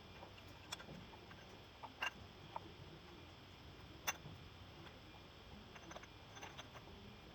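Faint, scattered sharp clicks and light taps, about six of them a second or so apart, over a low steady hiss.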